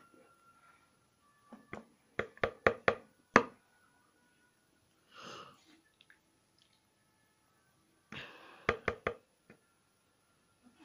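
Metal spoon knocking against the pickle bowl and jar: a quick run of about five sharp taps, then two short scraping sounds, and three more quick taps near the end, as pickle is scooped and knocked off the spoon into a plastic jar.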